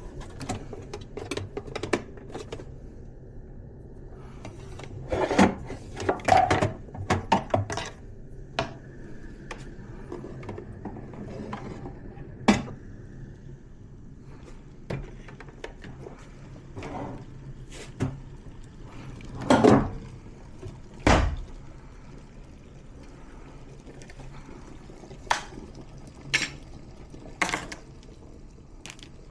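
Scattered clicks, knocks and clinks of small espresso gear being handled and set down, in two busier clusters, over a steady low hum.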